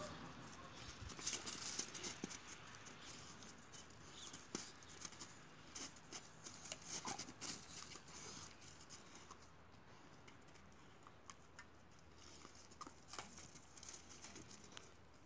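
Faint, irregular crunching and scratching of two boxer dogs' paws on icy, crusted snow as they scuffle and nose about, coming in scattered clusters of small clicks.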